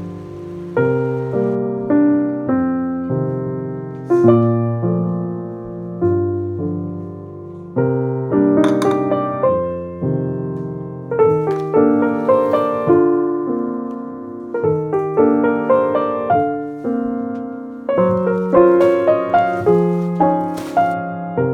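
Background piano music: a slow, gentle piece of chords and melody notes, each struck and left to fade.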